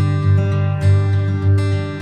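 Background music: strummed acoustic guitar over deep, sustained bass notes.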